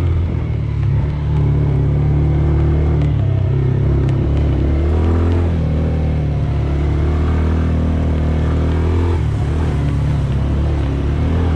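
ATV engine running under way on a dirt trail, its speed rising and falling with the throttle.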